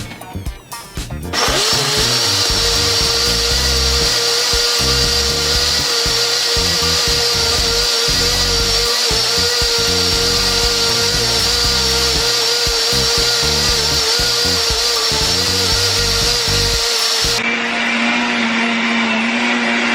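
Countertop blender motor starts about a second in and runs steadily at full speed, blending peanut punch. Near the end its pitch drops to a lower hum, then it winds down as it is switched off.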